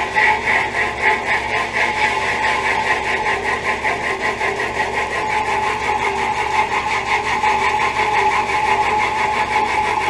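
Central air-conditioner outdoor condenser units: one running with a steady hum, overlaid by a rhythmic whooshing pulse about four to five times a second from a condenser fan's blades turning.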